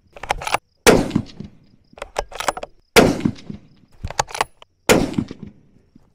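Remington 700 ADL bolt-action rifle in 6.5 Creedmoor fired three times, about two seconds apart, each shot trailing off. Between the shots the bolt is worked with a quick run of metallic clicks, ejecting the spent case and chambering the next round.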